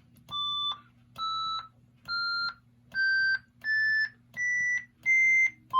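Gottlieb System 80B pinball soundboard running its sound test: a rising musical scale of seven plain beep tones, each about half a second long with short gaps between. A faint steady hum sits underneath.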